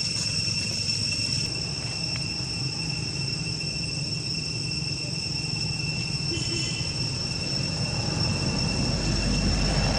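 Steady high-pitched drone of insects over a low rumble that grows louder near the end, like an engine or vehicle drawing closer.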